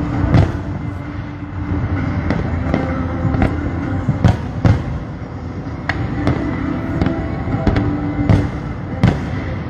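Fireworks bursting in quick, irregular succession: many sharp bangs, a few louder than the rest, over a steady low rumble.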